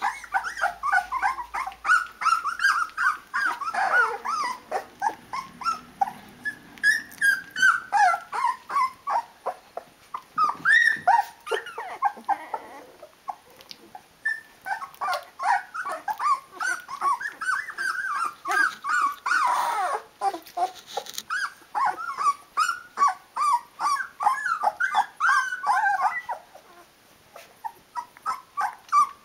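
Litter of 16-day-old Rhodesian Ridgeback puppies whimpering and squeaking in many short, overlapping high calls, calling for their mother to feed them. The calls thin out near the end.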